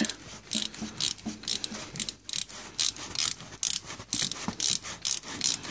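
Socket ratchet clicking in uneven runs, about three clicks a second, as it turns out the 17 mm engine oil drain plug of a 2001 Honda Foreman 450 ATV.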